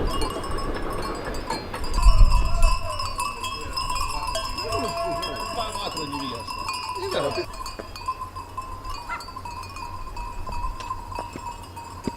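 Livestock bells ringing steadily while several sheep bleat between about three and eight seconds in, with a low thump at about two seconds.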